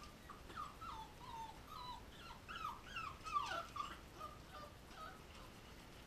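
Young puppies whimpering: a rapid string of short, high cries, many falling in pitch, loudest around the middle and thinning out near the end.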